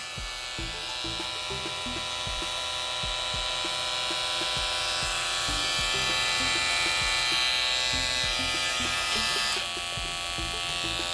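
Two Wahl Detailer T-blade hair trimmers buzzing steadily side by side: the older corded model and the new cordless model running with its cable connected. The buzz dips slightly near the end.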